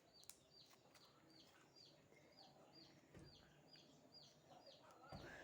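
Faint, rapid bird chirping: short high notes that each fall in pitch, repeated about three times a second. A couple of soft low thumps sound a little after the middle and near the end.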